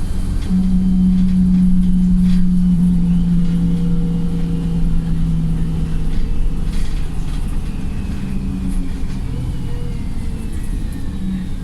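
Wright StreetLite single-deck bus's diesel engine and drivetrain running hard under way, heard from inside the bus. A strong steady drone sets in about half a second in and fades after about six seconds, over a low rumble, while a faint whine slowly falls in pitch.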